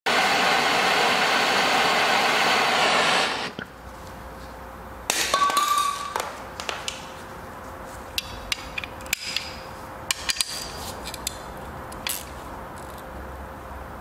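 Workshop tool noise around an exhaust stud: a loud, steady machine sound runs for about three seconds and cuts off. About five seconds in comes a loud metallic scrape with a ringing tone, followed by scattered clinks and taps of metal tools.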